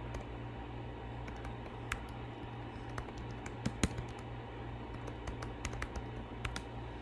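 Computer keyboard typing: scattered, irregular keystrokes over a steady low hum.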